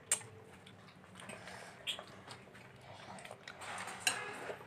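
Mouth sounds of eating at close range: chewing with scattered sharp clicks and smacks.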